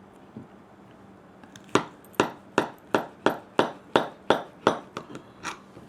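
A knife striking a dish about eleven times in a steady rhythm, about three sharp clinks a second, as a slice of the dessert is cut.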